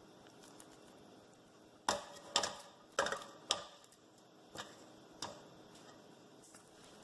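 A silicone spatula knocking and scraping against the rim of a metal pot, about four sharp knocks half a second apart, then two softer ones, as thick turnip cake batter is shaken off it.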